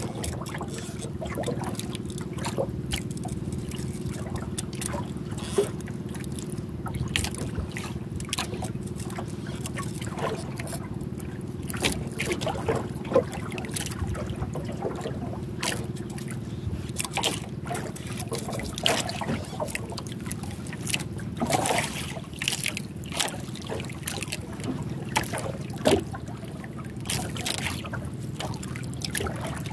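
Water lapping and splashing against the hull of a small outrigger boat, with scattered short clicks and splashes. A steady low engine hum runs underneath.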